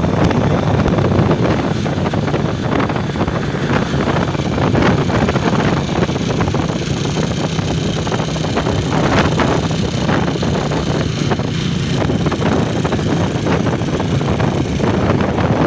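Steady vehicle engine and road noise with wind buffeting the microphone.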